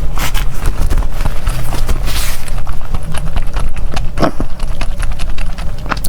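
Close-miked eating sounds: rapid, irregular chewing and mouth clicks of someone eating soft desserts, with a steady low hum underneath.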